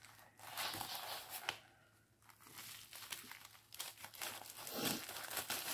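Crinkling and rustling of a diamond painting kit's plastic packaging being handled, with a short pause about two seconds in.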